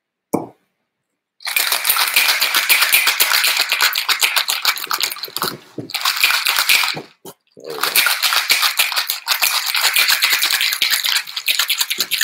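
Whole ice cubes rattling hard and fast inside a metal cocktail shaker as a cocktail is shaken. The shaking starts about a second and a half in and pauses briefly twice near the middle.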